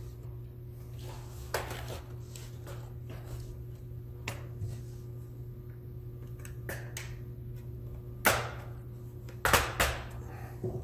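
Plastic snap clips of a Lenovo IdeaPad 310's palm rest popping loose as the deck is pried up from the base: scattered sharp clicks and snaps, the loudest a quick cluster in the last few seconds. A steady low hum runs underneath.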